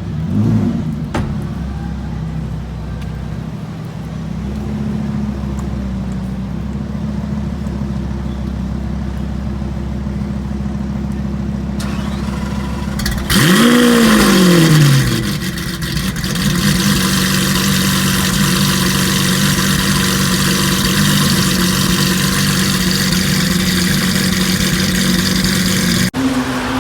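Lamborghini Aventador's V12 on a Novitec exhaust idling steadily. There is a brief rise in revs just after the start and a sharper rev blip about halfway through, climbing and falling back over a second and a half, which is the loudest moment.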